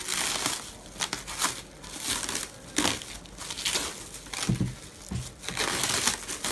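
Clear plastic wrapping film crinkling and rustling in irregular crackly bursts as hands grip and pull at it around a wrapped machine.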